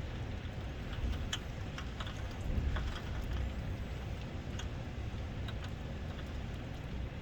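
Heavy tropical-storm rain falling steadily, with a low rumble underneath and scattered sharp ticks of drops striking nearby surfaces.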